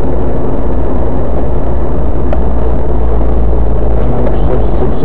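Car engine and road noise inside a moving car's cabin: a loud, steady low rumble.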